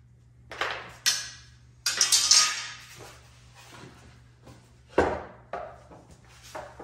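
Tools being handled on a plywood sheet: a metal drywall T-square clattering down, with a rattling clatter about two seconds in, and a plywood router jig set down with a thump about five seconds in, among smaller knocks.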